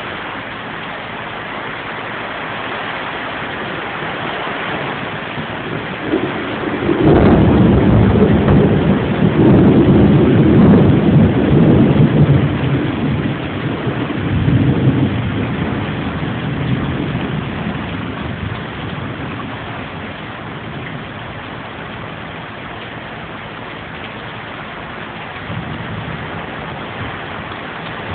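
Steady rain falling, with a low rumble of thunder that starts about a quarter of the way in, swells and dies away over about eight seconds.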